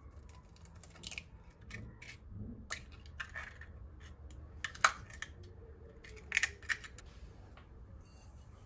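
A few light clicks and taps of small objects being handled, with a quick cluster of clicks about six and a half seconds in.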